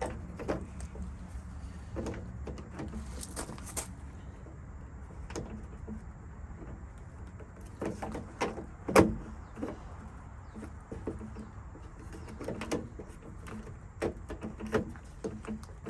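Scattered light clicks and metallic knocks from handling the replacement door lock cylinder and its retaining clip inside the truck door. The sharpest knock comes about nine seconds in.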